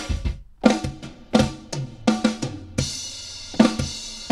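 Sampled boom bap drum fills played back from an MPC: quick runs of kick and snare hits with a short break early on, then a cymbal crash ringing out from about three seconds in.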